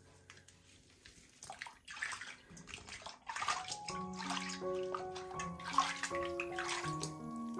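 Water sloshing and splashing in a filled bathroom sink in several short bursts as a small kitten is bathed and moved through it. Background music with a simple note-by-note melody comes in about four seconds in.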